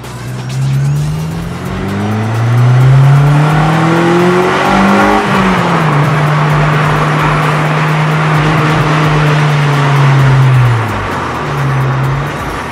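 Honda Civic Type R's four-cylinder engine heard from inside the cabin. It pulls up through the revs with a rising pitch twice, holds a steady note for about five seconds, and eases off about eleven seconds in, with a short rise just before the end.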